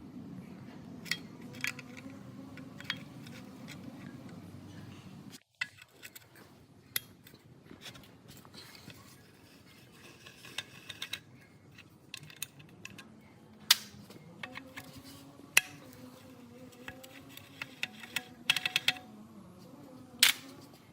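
Metal hand tools and metal engine parts clinking and clicking in irregular sharp taps, over a low hum that cuts off about five seconds in.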